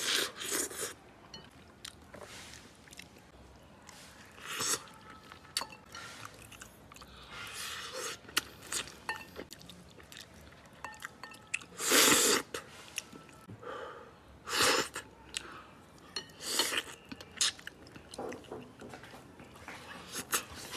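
People chewing and sucking on soft braised chicken heads, with short wet sucking and mouth-noise bursts every few seconds; the loudest comes about twelve seconds in.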